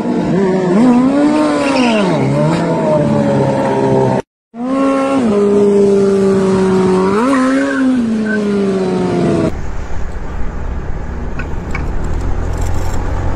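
Sport bike engine revving, its pitch rising and falling and wavering, with a brief cut-out about four seconds in. About two-thirds of the way through it gives way to a steady low rumble of wind and road noise from a motorcycle riding along.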